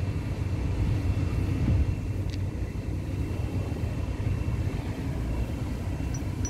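Steady low mechanical rumble of machinery running in the background, with a faint steady high whine over it and a faint click about two seconds in.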